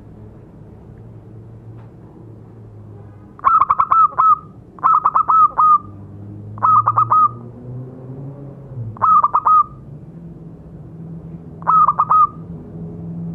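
Zebra dove (perkutut) singing its staccato cooing song: five short phrases, each a quick run of several clipped notes, spaced about two seconds apart. A low steady rumble runs underneath.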